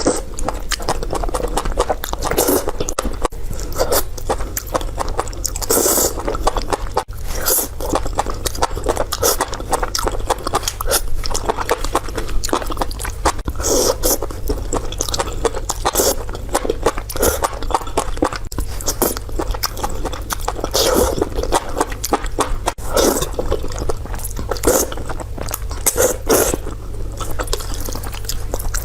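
Close-miked eating: a person biting and chewing food, with a dense, irregular run of short crunches and clicks over a steady low hum.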